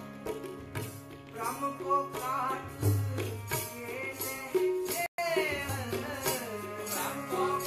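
Sikh kirtan: a harmonium playing held chords under tabla strokes, with a man's voice singing a winding melody from about a second and a half in. The sound cuts out for an instant about five seconds in.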